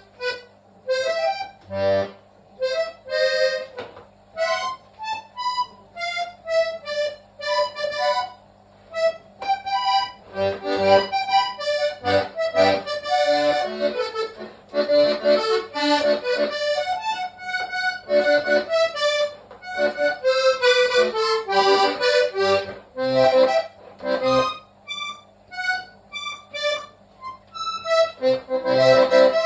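Hohner Trichord three-row diatonic button accordion playing solo: a quick melody of short, separate notes in phrases with brief pauses, with low bass notes struck here and there.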